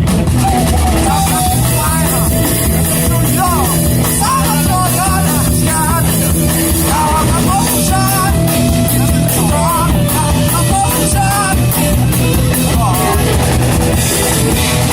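Rock band playing loud, with drums, bass, electric guitar and a wavering sung or lead melody over a steady beat.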